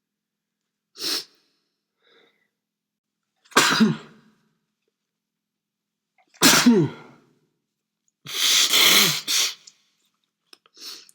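A man sneezing repeatedly. A short burst comes about a second in, then three loud sneezes a few seconds apart, the second with a voice falling in pitch and the last drawn out for over a second. A faint breath follows near the end.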